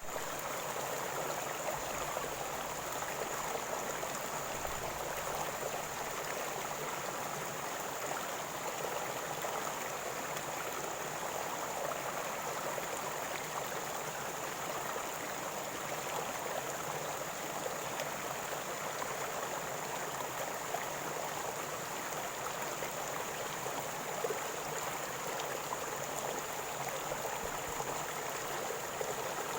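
River water flowing and gurgling steadily.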